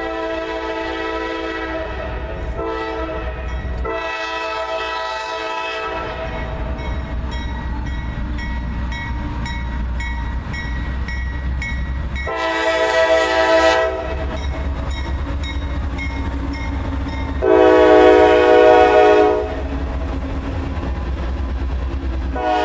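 Diesel freight locomotive sounding its air horn in a series of blasts over the steady low rumble of the passing train. There are three blasts close together in the first six seconds, then two more about twelve and eighteen seconds in, and the last is the loudest.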